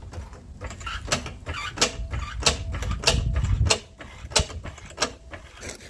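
Hydraulic floor jack being pumped by its long handle to lift the car, with a sharp click or knock about twice a second as the handle strokes.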